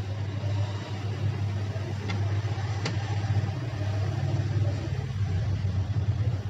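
Hot air SMD rework station running with a steady low hum while it blows hot air onto the stencil to melt solder paste into new balls on the eMMC chip. Two faint ticks come about two and three seconds in.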